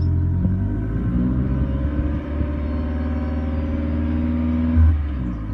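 Toyota Prius ZVW30's 1.8-litre four-cylinder engine running through a Tommykaira titanium muffler. The exhaust note rises about a second in, holds at the higher pitch, then drops back near the end.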